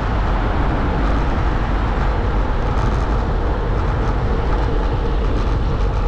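Steady wind and road noise on the microphone of a handlebar-mounted camera as a road bike rides through a road underpass, loud and heaviest in the low end.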